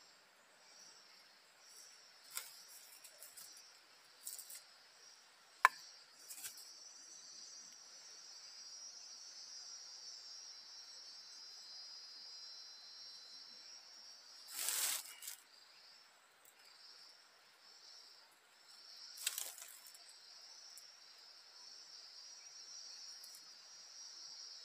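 Insects chirping in a steady, high-pitched chorus that pulses about twice a second at times. Scattered clicks and knocks cut in, the loudest a sharp click about six seconds in, with short rustling bursts around fifteen and nineteen seconds.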